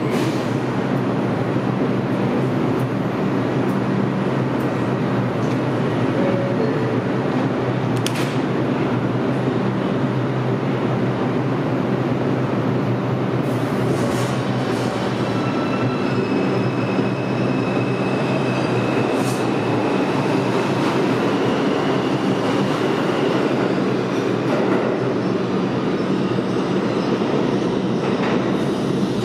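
R142 New York City subway train on the 4 line standing at an underground station platform and then pulling out, with a steady rumble and low electric hum throughout and a thin high whine through the middle as it gets under way.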